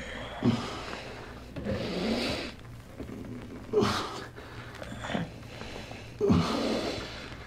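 Arm wrestlers straining: several short grunts that fall in pitch and heavy, breathy exhalations, played back from a vinyl record with a steady low hum underneath.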